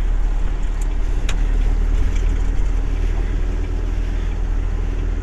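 Steady low drone of a truck's engine and road noise heard from inside the cab while driving.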